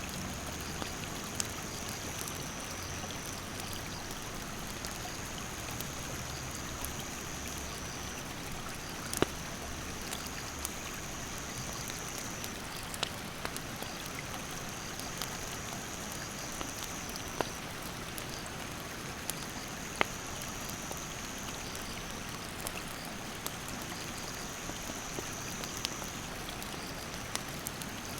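A stream rushing steadily, with a wood campfire crackling in scattered sharp pops, the loudest about nine and twenty seconds in. A high insect trill runs in long stretches broken by short pauses.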